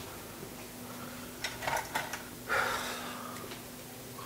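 Cookware and utensils being handled at the stove: a few light clicks, then a short noisy scrape about halfway through, over a faint steady hum.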